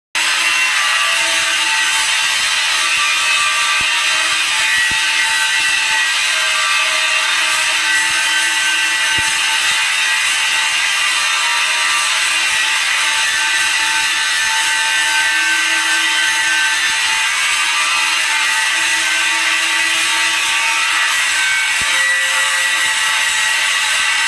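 Welding arc burning on a steel pipe joint: a steady, unbroken hiss with faint tones held over it and a few small clicks.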